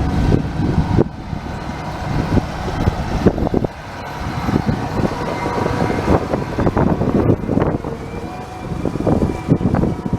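A motor vehicle running, a steady engine hum under rough, crackling noise.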